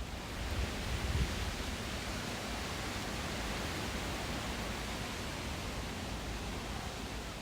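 A steady rushing hiss of outdoor noise, with low rumbles about a second in.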